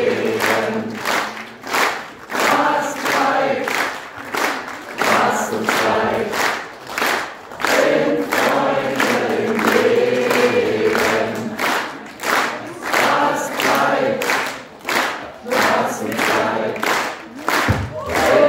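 A concert audience singing along together, like a large choir, and clapping in time, about two claps a second.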